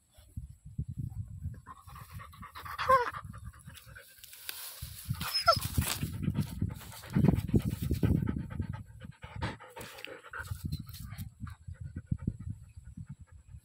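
Dog panting quickly and close to the microphone, with a short pause about a third of the way in. Two brief sounds falling in pitch come about three and five and a half seconds in.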